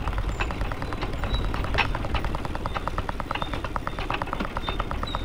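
Rail bike rolling along railway track: a steady low rumble from the wheels on the rails, with a rapid, even ticking of about ten ticks a second.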